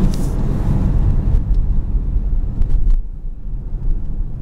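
Hyundai Santa Fe driving on the road, heard from inside the cabin: a steady low rumble of engine and tyre noise, with a few faint clicks.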